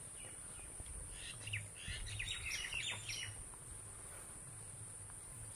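Faint, quick chirping of small birds lasting about two seconds, over a steady high-pitched drone of insects.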